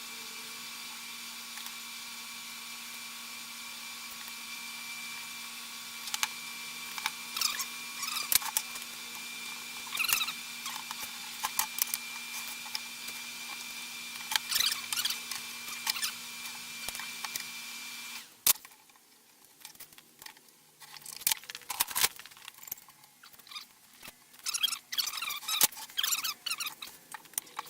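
Scattered light clicks and taps of hand work on a wooden box glue-up, over a steady electric hum with a high whine that cuts off about 18 seconds in.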